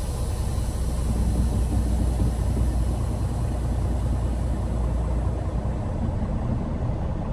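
Peterbilt 389 semi truck's diesel engine running with a steady low drone.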